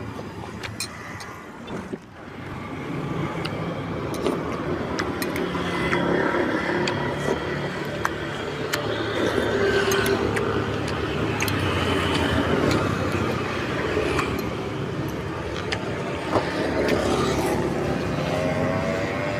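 Road traffic passing: motor vehicle engines running, louder from about two seconds in, with scattered sharp clicks over it.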